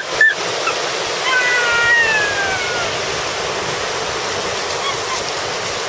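Gulf surf breaking and washing up the beach in a steady rush. A faint, long call that falls in pitch sounds over it about a second and a half in.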